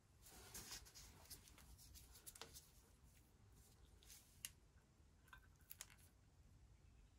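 Faint handling noises: soft rustles and a few small clicks as gloved hands fit the black lead's alligator clip onto the part to be plated.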